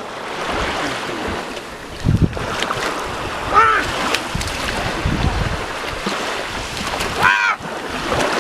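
Ocean surf washing in, with wind buffeting the microphone. Two short arching calls sound over it, about three and a half seconds apart.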